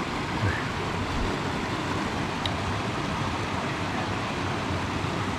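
Steady rushing of running water from a cold mountain stream.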